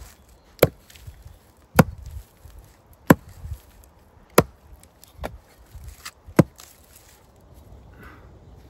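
Hatchet chopping through the straw bristles of a broom to trim them: five sharp chops about a second and a quarter apart, with a couple of lighter knocks among them.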